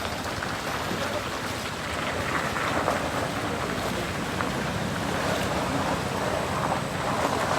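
A vehicle engine running steadily under a haze of outdoor noise, with wind on the microphone.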